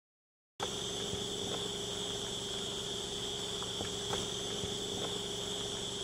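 Forest insects droning steadily in one high, even band, starting about half a second in, with a lower steady hum beneath and a few faint ticks.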